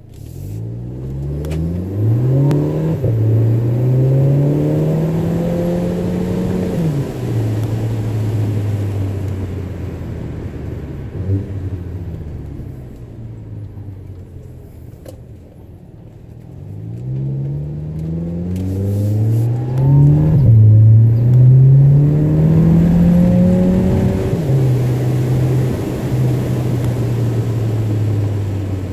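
Audi A3 exhaust with the muffler deleted and a performance resonator fitted, heard from inside the car as it accelerates twice through the gears. The engine note climbs and drops back at each upshift, then settles lower and steadier once the car is cruising. The second pull, past the middle, is the loudest.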